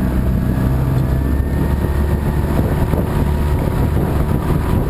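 Jon boat's outboard motor running steadily under throttle, pushing the boat along.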